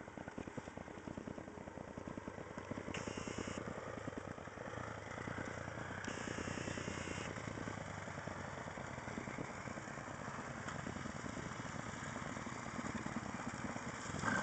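Two enduro dirt bikes, a Yamaha WR-F and a Husqvarna 610, single-cylinder four-stroke engines running at low revs with a rapid, even chugging beat as they roll downhill, growing louder as the bikes come closer.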